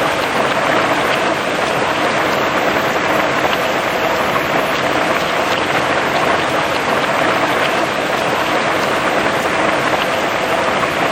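Heavy rain falling steadily on grass and tree foliage, a dense even hiss with scattered drop patter.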